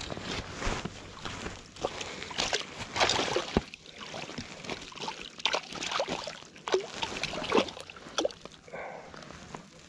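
Irregular small splashes, drips and handling noises as a fish is worked in a landing net just above the water.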